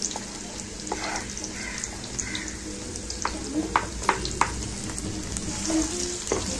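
Chopped onions sizzling in hot oil in a kadhai, with a few sharp knocks in the middle as they are scraped in and stirred with a wooden spatula.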